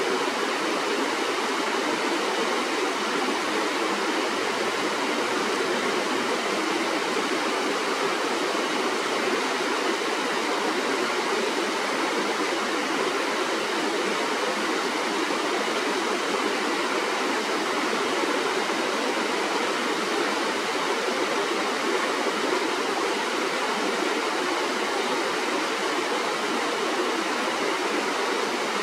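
Shallow stream flowing over its bed, a steady, even rush of water with no break.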